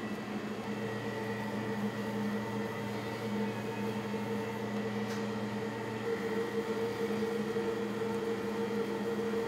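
Steady hum of running kitchen machinery, a motor or fan holding a few constant tones.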